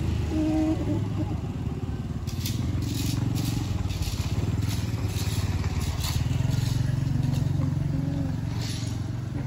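A motor engine running steadily, with a few short scraping strokes over it.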